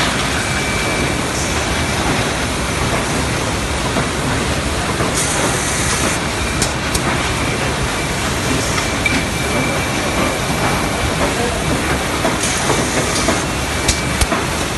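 1991 Mawag KS 1 F2 duplex slitter (guillotine and roller slitter) with automatic sheet feeder running: a steady mechanical clatter and hum. Short hisses come about 5 s and 12.5 s in, with a few sharp clicks.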